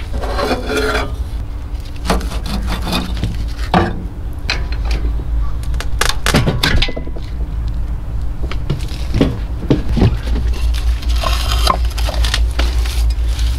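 Scattered metal knocks, clanks and scrapes from a 1942 Farmall M engine's cylinder head and parts being worked loose and lifted off the block, over a steady low rumble.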